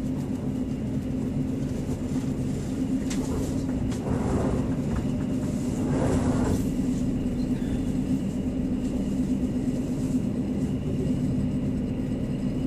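A passenger train running at speed, heard from inside the carriage: a steady rumble of wheels on rail under a low steady hum. About four and six seconds in there are two brief swells of rushing noise.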